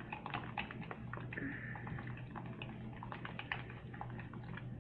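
Glue-and-borax slime being mixed: faint, irregular sticky clicks and wet squelches as the goo starts to set.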